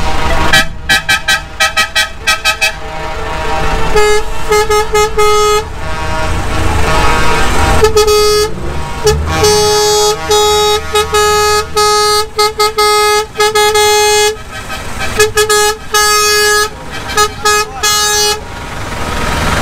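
Truck air horn honked over and over: fast strings of short toots mixed with longer held blasts, all on one pitch. A diesel truck engine rumbles underneath.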